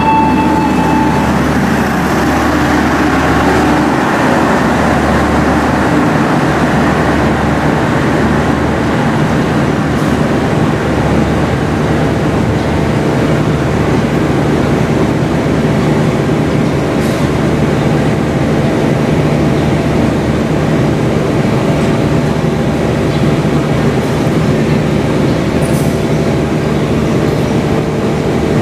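Passenger train's stainless-steel coaches rolling along a station platform: a steady, unbroken rumble of wheels on rail that carries on as the last coach draws away.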